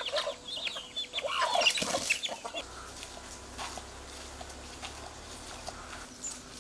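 Chickens clucking, a quick flurry of short calls in the first two seconds, then only a few faint calls.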